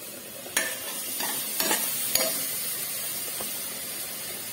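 A metal spatula stirring and scraping chopped onions, garlic paste and chilli powder frying in hot oil in a non-stick pot, with a steady sizzle. About five sharp scrapes and knocks of the spatula against the pot come in the first few seconds.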